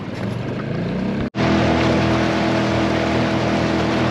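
A boat motor under way, with water and wind noise around it. The hum rises during the first second, the sound cuts out for an instant, then the motor runs loud and steady.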